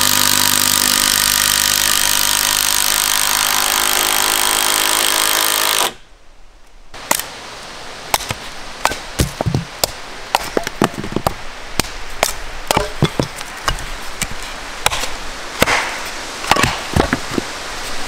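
A loud, steady mechanical buzz with hiss for about the first six seconds, which cuts off abruptly. Then a hatchet splits kindling on a wooden chopping block: a run of sharp, irregular strikes and cracks of wood.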